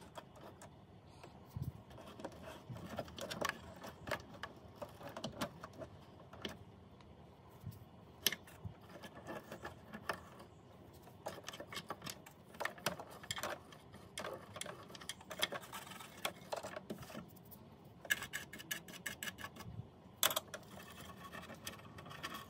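Cotton swab scraping and clicking against the metal bobbin area and feed dogs of a sewing machine as lint is dug out: faint, irregular small scratches and ticks, with a quicker run of clicks near the end.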